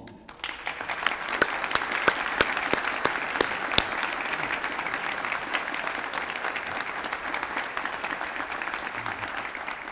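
Audience applauding: a dense patter of many hands clapping starts just after the opening, with a few sharp individual claps standing out in the first seconds, and tapers off near the end.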